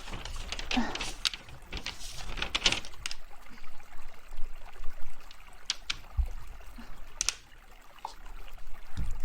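Close-miked writing on paper: short, irregular scratching strokes and paper rustles, with a brief lull a little before the end.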